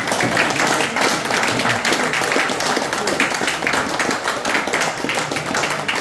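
An audience applauding, a dense run of many hands clapping at once.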